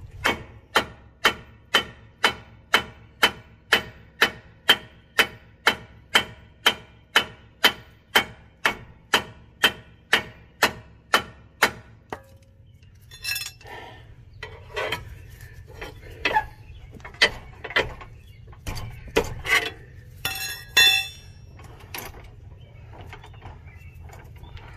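Steady hammer blows on the steel front suspension of a 2012 Subaru Legacy, about two a second for some twelve seconds, while the lower ball joint is being worked loose. After that come scattered metal knocks and clinks.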